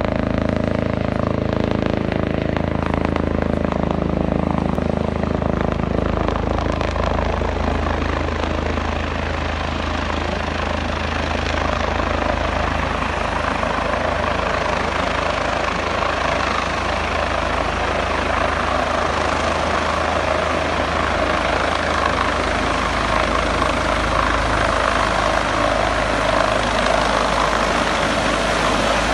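Air-ambulance helicopter approaching and descending to land on a helipad, its rotor and turbine running with a steady low beat. A rushing noise builds from about halfway through as the helicopter comes closer.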